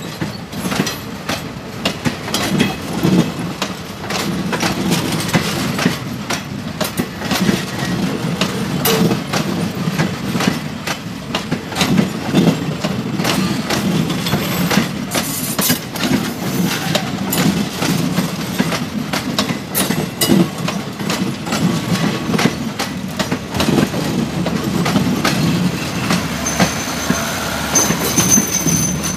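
Railway passenger coaches rolling past close by: a steady low rumble with the wheels clacking and knocking over the track many times over. A thin high squeal comes in near the end.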